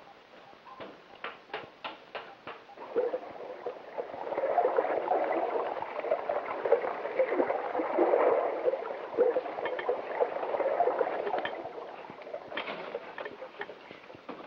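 Water gurgling and churning for several seconds, with scattered sharp clicks and knocks before and after. This is the sound of a submarine's flooded escape chamber being drained as a diver comes aboard.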